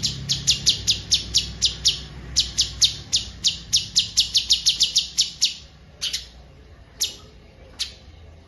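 Songbird giving a fast run of sharp, downward-sweeping chirps, about four a second, that stops about five and a half seconds in, followed by three single chirps.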